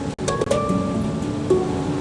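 Handpan being played by hand: several steel notes struck and left ringing over one another. The sound drops out briefly right at the start.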